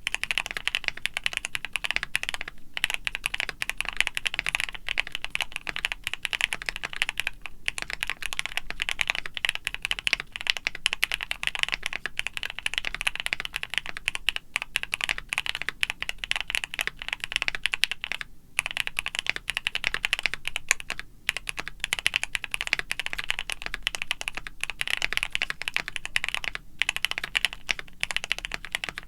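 Rapid, continuous typing on a keyboard: a dense run of clicks, broken by a few brief pauses.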